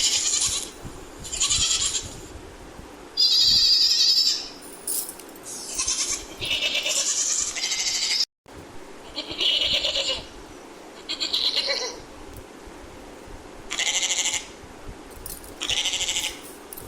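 Goat bleating again and again: about nine high calls, each up to a second or so long, with short pauses between them. The sound cuts out completely for a moment a little past eight seconds in.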